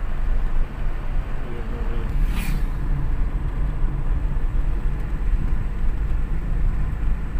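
Steady rumble of a moving vehicle with road and wind noise, with a brief hiss about two and a half seconds in.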